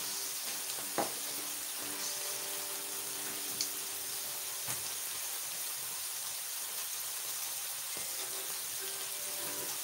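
Rump steaks sizzling steadily in a hot ridged griddle pan as they sear on their second side, with a single sharp click about a second in.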